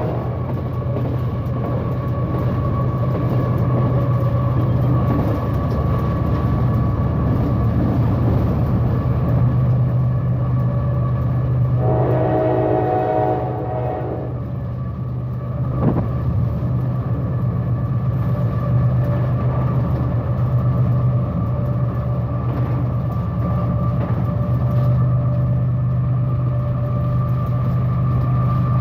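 General Electric diesel-electric freight locomotive running with a steady low engine drone, its horn sounding once for about a second and a half a little before the middle. A single sharp click comes shortly after the horn.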